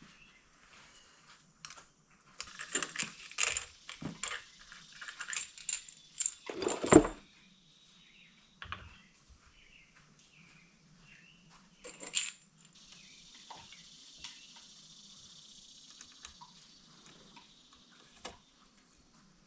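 Small metal hardware clinking and rattling as a new handle and shoulder strap are fitted to a Husqvarna 326L string trimmer: a run of sharp clicks and knocks, the heaviest about seven seconds in, then a few more clicks and a faint steady hiss.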